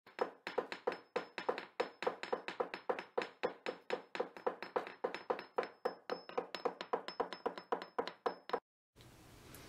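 A rapid, even series of sharp taps or knocks, about four a second, that stops abruptly near the end.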